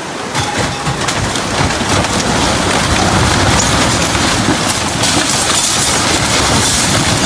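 Rushing floodwater: a steady, loud roar of fast-moving water with a low rumble underneath.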